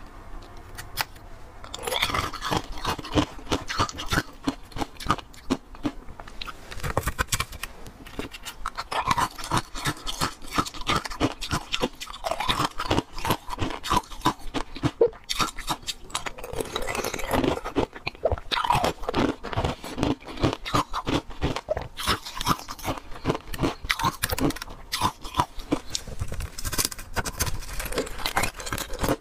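Frozen milk-tea ice being bitten and chewed: dense, continuous crunching that starts about two seconds in.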